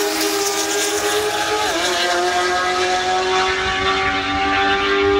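Race car engines at full throttle in a roll race down a drag strip: a steady high engine note, with a gear change just under two seconds in where the pitch drops and then slowly climbs again.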